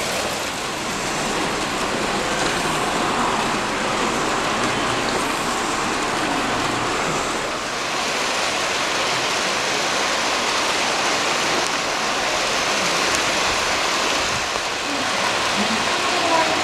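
Electric train running on the rails, a steady rushing noise with no distinct clicks or tones.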